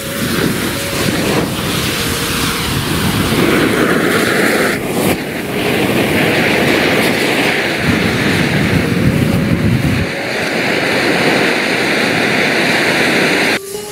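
A large roll of matches burning all at once, a steady fiery rush and crackle that grows into a stronger hissing roar about five seconds in. It cuts off abruptly near the end.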